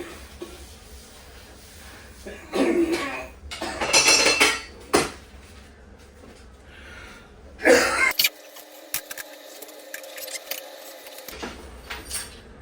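Several loud clanks and rattles of metal in a small room, with lighter clicks after them.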